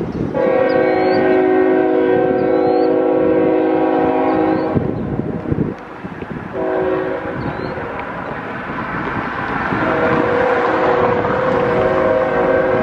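Diesel locomotive air horn sounding a multi-note chord for a grade crossing: a long blast of about four seconds, a shorter one after a brief pause, then a sustained blast from about ten seconds in, over the rising rumble of the approaching train.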